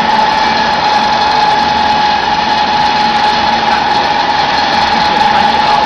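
Chicken feed pellet press running: loud, steady machine noise with a constant whine.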